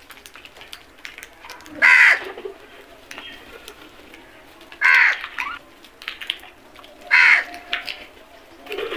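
House crows cawing: three loud caws, each under half a second, spaced two to three seconds apart, with faint clicks between.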